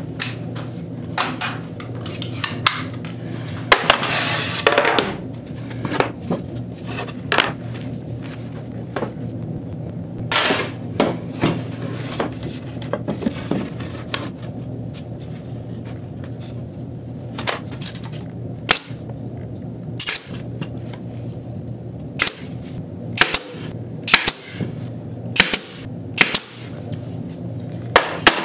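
Pneumatic nail gun firing nails into panels one shot at a time: sharp clacks at irregular intervals, coming quicker near the end. A short burst of hiss comes about four seconds in.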